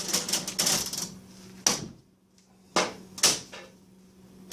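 1920 National Cash Register's hand-cranked mechanism: a second of rapid clattering, then three sharp mechanical clunks with short gaps between them as the crank turns the internals through their cycle.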